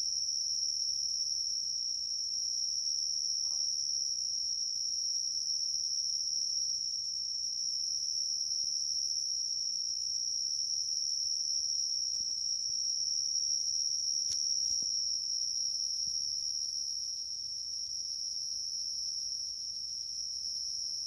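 An unseen cricket-like insect trilling continuously at one very high, steady pitch, without a break.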